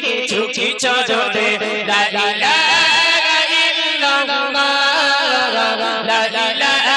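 Two men singing a Bangla Islamic gojol (devotional song) into handheld microphones in a steady, chant-like vocal line.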